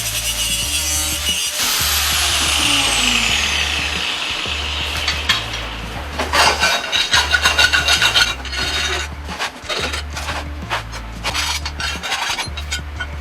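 A power tool cutting, then winding down with a falling whine, followed by a quick run of scraping, rasping strokes, as of hand work on the workpiece. Background music with a steady beat underneath.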